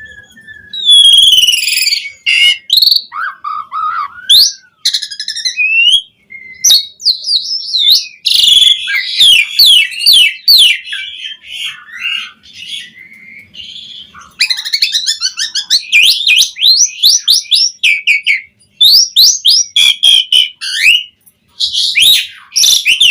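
Asian pied starling (jalak suren) singing a long, varied song of whistled glides, fast runs of repeated sweeping notes and harsher chattering phrases, with a few short pauses.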